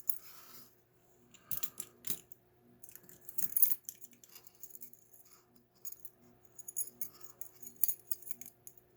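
Keys jingling and the metallic clicks of a deadbolt lock and its keys being handled, in several short clusters.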